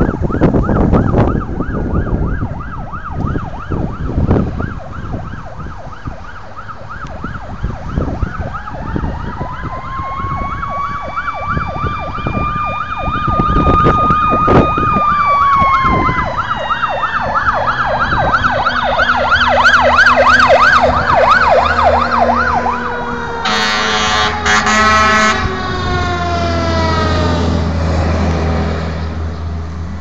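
Fire apparatus siren yelping fast throughout. About eight seconds in, a second, mechanical siren winds up, holds, then winds slowly down over most of the remaining time. A run of air horn blasts sounds about three-quarters of the way through, and the truck's engine rumble comes up near the end.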